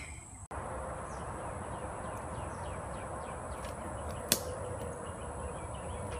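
Outdoor summer woodland ambience: a steady high insect drone over a soft hiss, with faint bird chirps. There is one sharp snap a little past four seconds in.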